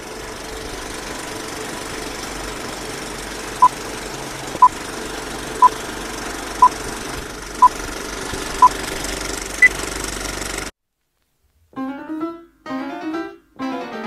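Film-leader countdown sound effect: a steady projector clatter and hum with a short beep once a second, six at one pitch and a seventh higher, then it cuts off suddenly. After about a second of silence, keyboard music with a harpsichord-like sound starts near the end.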